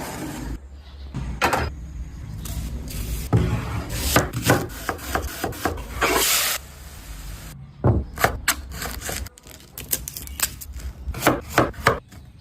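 A knife chopping food on a cutting board: a run of irregular cuts and knocks, with a short rasping scrape about six seconds in.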